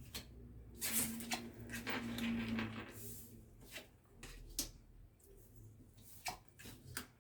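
Tarot cards being handled and laid out on a table: scattered soft taps, clicks and paper rustles at irregular intervals.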